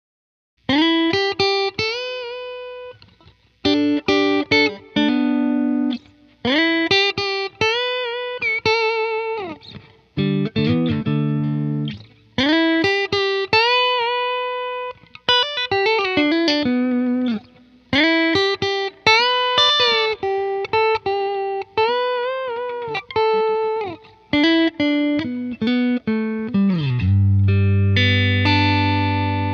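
S-style electric guitar playing a melodic lead of single notes and double-stops, with string bends and vibrato, in phrases separated by short gaps. It ends on a strummed chord left to ring.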